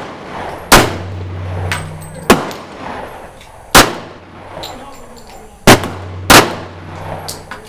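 Glock 22 pistol in .40 S&W fired five times in slow single shots, roughly one to two seconds apart, each crack trailed by a short echo. Fainter shots from other shooters on the line fall in between.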